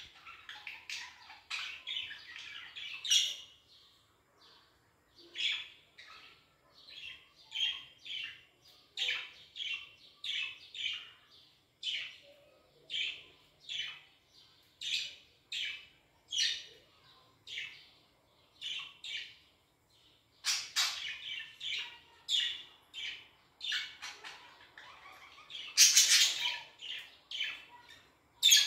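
Pet budgerigars chirping and chattering in a run of short, high chirps with brief pauses, rising to a louder flurry of squawky chirps near the end.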